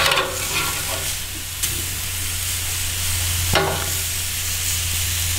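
Fallow deer loin pieces sizzling as they sear on a hot gas grill grate, with three sharp clicks of steel tongs against the meat and grate as the pieces are turned.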